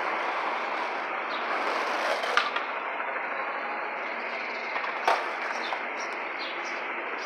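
Steady city street traffic noise, a wash of passing cars, with a couple of short sharp clicks about two and a half and five seconds in.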